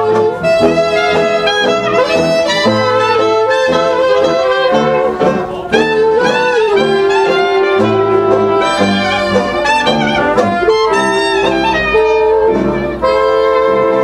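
Traditional jazz band playing live: trumpet and cornet lead together over clarinet and saxophone lines, with sousaphone bass notes underneath.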